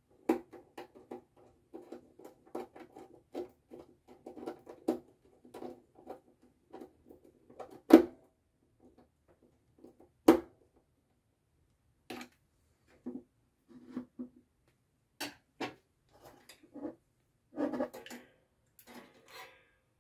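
Small clicks and rattles of wires and plastic terminal parts being handled at a timer relay: a busy run of quick ticks, two sharp loud clicks about eight and ten seconds in, then scattered clicks.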